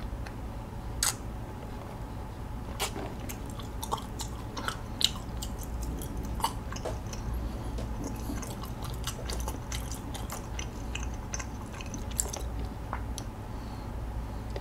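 Close-miked mouth sounds of sipping bubble tea through a wide straw and chewing the chewy tapioca pearls: scattered wet clicks and smacks.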